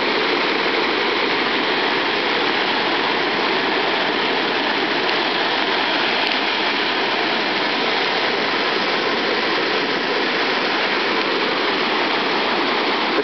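Floodwater churning and rushing down an overflowing roadside ditch like muddy white-water rapids, a steady loud rush with rain mixed in.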